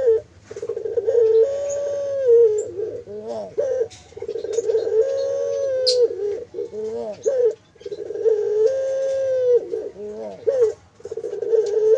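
Puter (Barbary dove) cooing: long drawn-out coos that step up in pitch and back down, about every three to four seconds, with shorter wavering notes between them. Small birds chirp faintly in the background.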